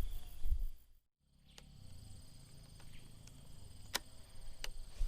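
Steady high-pitched insect drone with a few sharp clicks scattered through it; the sound cuts out completely for a moment about a second in.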